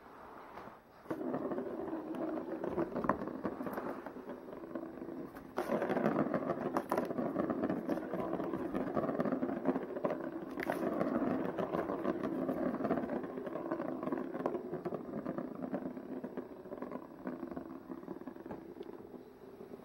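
Plastic ball rolling round the ring track of a cat scratcher toy, a continuous rolling rattle that starts about a second in and gets louder about five and a half seconds in, with a few sharp clicks as the cat bats the ball.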